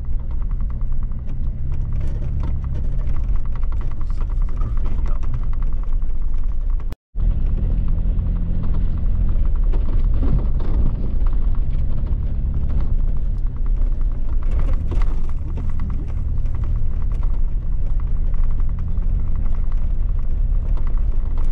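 Jeep driving over a sandy, gravelly trail: a steady low rumble of engine and tyres, with small rattles and ticks. The sound cuts out for a split second about seven seconds in.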